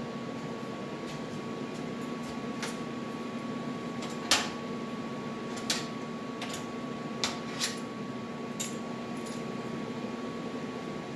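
A steady electrical or machine hum with about a dozen sharp clicks or clinks at irregular intervals; the loudest comes about four seconds in.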